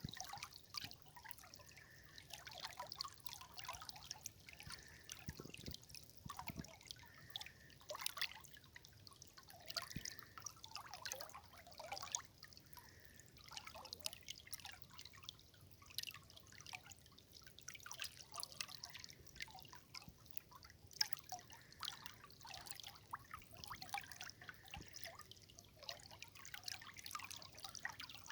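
River water trickling and dripping, with many small irregular splashes.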